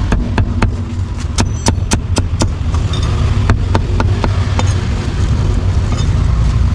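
Heavy meat cleaver chopping roast meats on a thick wooden chopping board: a quick run of sharp knocks, about four a second, for the first two and a half seconds, then scattered single chops. A steady low rumble runs underneath.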